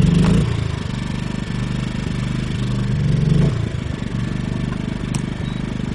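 Generac iQ2000 inverter generator's engine catching on a pull start and running steadily, swelling briefly about three seconds in before settling back. A single sharp click comes near the end.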